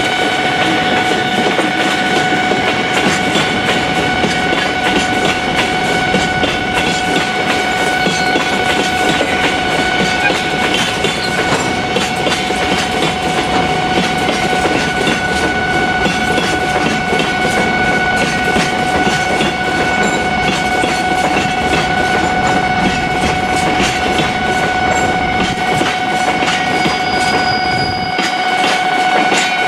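Cement tank wagons of a freight train rolling past, wheels clacking over the rail joints. A steady high ringing tone sounds over it.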